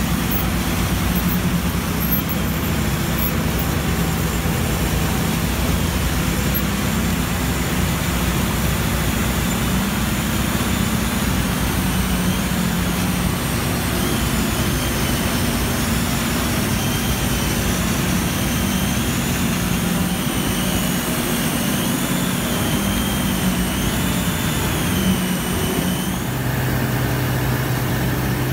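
Heavy diesel construction machinery running steadily during a concrete bridge-deck pour, a dense low drone with a faint high whine that rises and falls over and over in the second half. Near the end it gives way to a different, steadier low hum.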